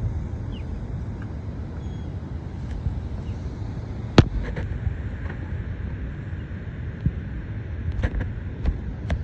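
Steady low rumble of outdoor noise with several sharp clicks or knocks over it. The loudest comes about four seconds in, and a few more fall near the end.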